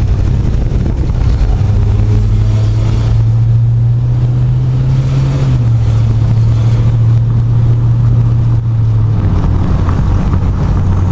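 Engine of a lifted old barn-door Chevrolet Suburban running while it drives, heard from inside the cab with road noise. The engine note climbs over the first five seconds or so, steps down, then holds steady.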